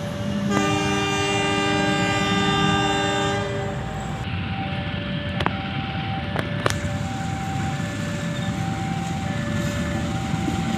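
Train horn blowing one long chord-like blast of about three seconds near the start, over the steady rumble of a passing train. A level-crossing warning signal repeats short alternating tones throughout, and a few sharp clacks of wheels over rail joints come around the middle.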